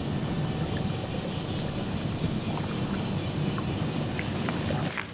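Insects chirring steadily in a high, finely pulsing band over a low rumble of ambience; both cut off together near the end.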